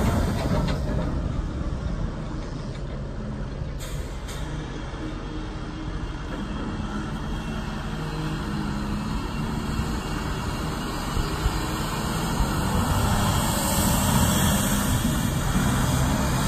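Volvo A40F articulated dump truck's 16-litre six-cylinder diesel engine running as the truck drives away and turns back: fainter through the middle and louder again toward the end as it comes closer.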